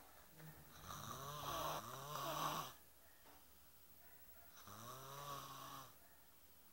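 Snoring: two snores about four seconds apart, the first longer and louder than the second.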